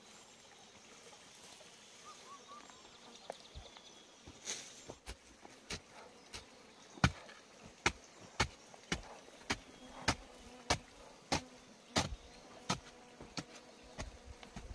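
A hand digging tool striking into packed earth, chopping out the wall of a pit in a steady rhythm of sharp strokes, about one every half second or so, starting about five seconds in and growing louder. Before that, a faint insect buzz.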